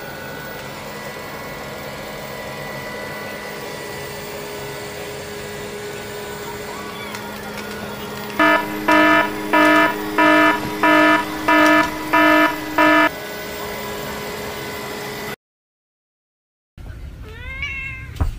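Robot vacuum cleaner running with a steady hum. About eight seconds in, it gives a run of eight loud, identical electronic beeps, nearly two a second. Near the end, after a brief silence, come a few short rising chirps.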